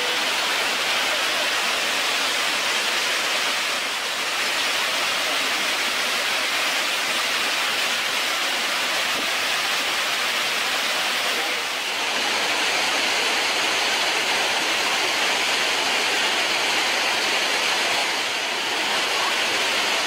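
Krimml Waterfalls, the glacier-fed Krimmler Ache plunging over rock: a loud, steady rush of falling water and spray, shifting slightly in level a few times.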